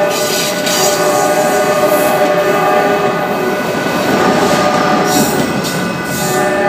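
Freight train rolling past, its wheels clattering over the rail joints under a steady chord of high, ringing tones that fade in the middle and come back near the end.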